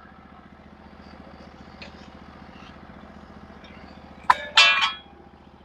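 Engine of a Norwood HD36v2 portable bandsaw mill idling steadily, with a sharp knock and a brief squeak about four seconds in as the log is worked into position on the bed.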